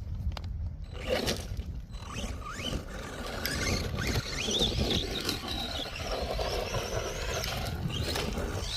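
ARRMA Vortex RC truck's electric motor whining up and down in pitch as it is driven, with its tyres scraping over loose ground and a few sharp knocks.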